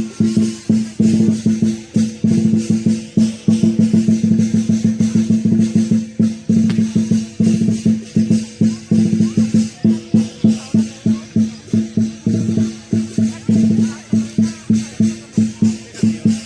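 Lion dance percussion: a large drum beaten in fast runs, settling into steady beats about three a second near the end, with cymbals clashing along.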